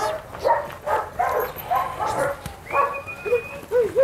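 German Shepherd puppies barking over and over, about two barks a second, with short whining yips near the end.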